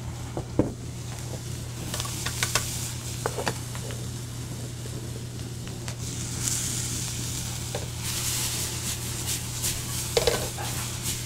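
Peppers, onions and garlic sizzling in olive oil in a skillet, a steady hiss that grows brighter about two-thirds of the way through. A few light clicks of metal come from the pan and utensils, one as the pan is lifted and shaken near the end. A steady low hum runs underneath.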